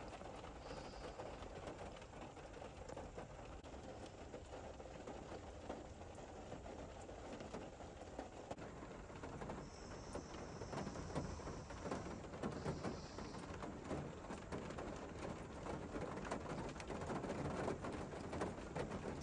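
Rain pattering on a Subaru's roof and windows, heard from inside the car: a steady soft patter of drops that grows a little louder toward the end.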